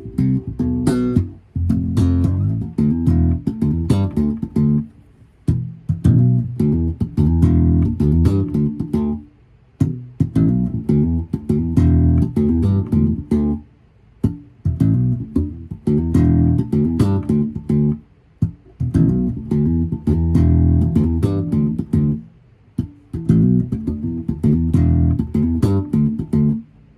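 Tobias Growler five-string electric bass played slap-style: six short licks of sharply slapped and popped notes, each lick followed by a brief pause.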